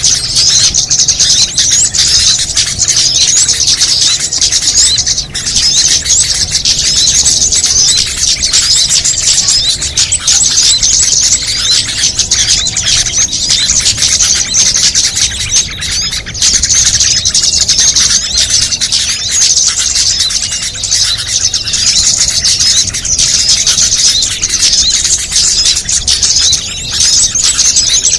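Dense, continuous high-pitched chirping and twittering of many small songbirds layered together, a mixed bird-lure call recording meant to draw small birds in.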